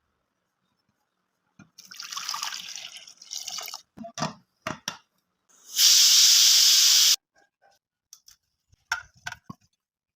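Kitchen handling sounds: a couple of seconds of rustling and a few knocks and clicks, then about a second and a half of water running hard, which stops abruptly, followed by a few more light clicks.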